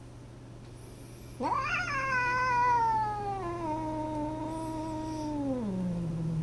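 A cat's long caterwaul starting about a second and a half in: it rises sharply, then slides slowly down in pitch for about five seconds and sinks low near the end. It is a territorial threat call at a rival cat.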